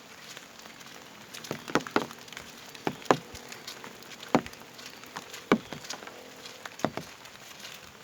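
Footsteps: sharp, irregular knocks, some in quick pairs, over a faint steady hiss.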